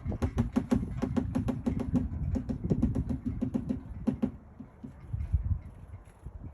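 Great spotted woodpecker pecking at wood with its bill: a fast, slightly uneven run of knocks, about eight to ten a second, each with a short low ring. The knocking stops about four seconds in.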